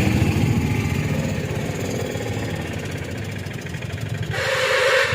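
Bus engine running with a low, pulsing rumble.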